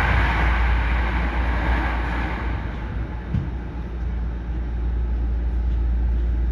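Hankyu 9300 series electric train standing at a signal, heard inside the car: a steady low hum with a broad hiss on top that dies away about two and a half seconds in.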